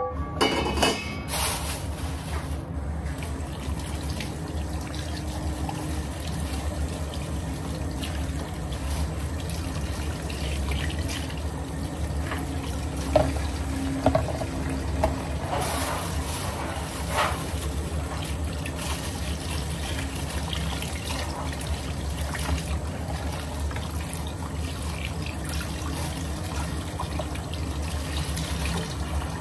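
Water running steadily from a kitchen tap into a sink, with a couple of light knocks partway through.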